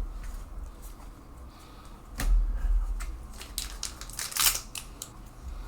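Plastic booster pack wrapper crinkling and being torn open, with sharp crackles and a louder crinkling burst a little after four seconds; a dull thump about two seconds in.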